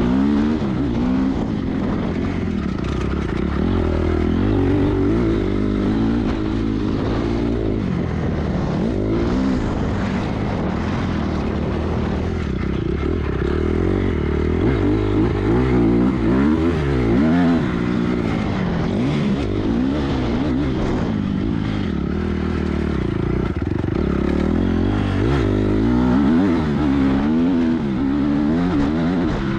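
Dirt bike engine running as the bike is ridden along a dirt track. Its pitch rises and falls again and again as the throttle is opened and closed.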